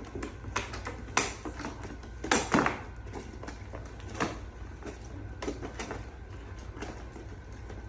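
Toy packaging being handled and opened by hand: irregular clicks, knocks and rustles, loudest in a short cluster about two and a half seconds in.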